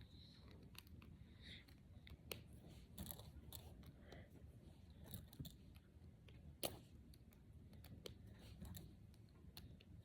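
Faint, irregular small plastic clicks of brain flakes, interlocking plastic discs, being pushed together by hand, with one sharper click about six and a half seconds in.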